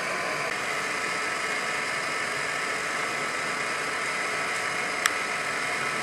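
Steady machine-like hiss and hum, with one short click about five seconds in.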